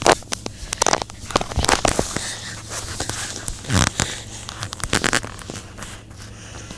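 Irregular crackling and rustling clicks, with a few louder sharp ones in the first second and past the middle, dying away near the end: handling noise and paper rustling close to the microphone.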